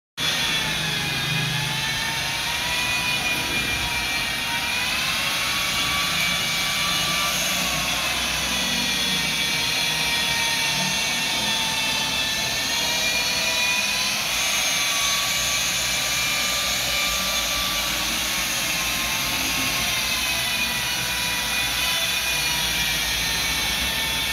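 A motor running steadily with a high whine whose pitch drifts slightly up and down.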